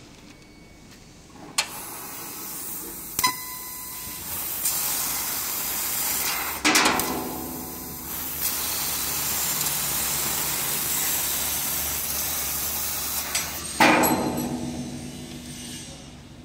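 Laser cutting machine cutting 4 mm carbon steel: a steady hiss of assist gas blowing through the cutting head's nozzle. It starts with a click about a second and a half in and grows louder a few seconds later. Two sharp bangs about six and a half and fourteen seconds in are followed by short fading tails, and the hiss dies away near the end.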